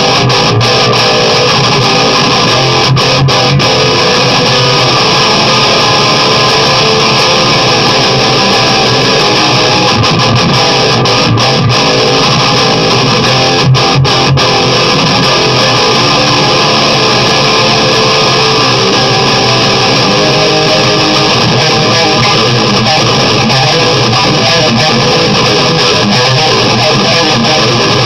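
Electric guitar played through a high-gain tube amp and 4x12 cabinet: an LTD M-17 seven-string into a Peavey 6534+ head and Marshall MG 4x12 cab. It plays distorted riffs continuously at a steady, loud level.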